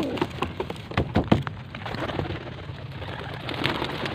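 Racing pigeons bursting out of a release crate and taking off: a clatter of flapping and clapping wings, loudest about a second in.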